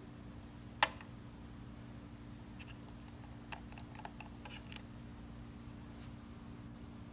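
A sugar cube dropped into a plastic cup of water, making one short sharp plop about a second in, followed later by a few faint clicks. A steady low hum runs underneath.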